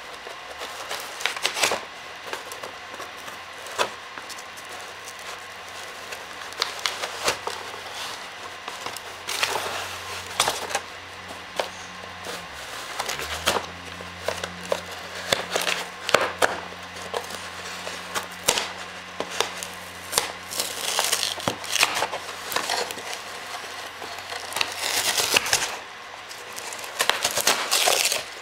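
A dog tearing and chewing cardboard and a paper shipping label. Repeated crinkling, crunching and sharp snaps, with longer ripping tears around ten, twenty and twenty-five seconds in. A low steady hum runs underneath and cuts off near the end.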